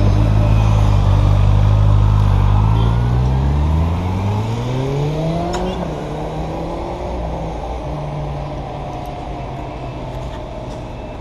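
Sport motorcycle engine running loud and steady, then rising smoothly in pitch as the bike accelerates away about four seconds in, before settling to a steadier, quieter note.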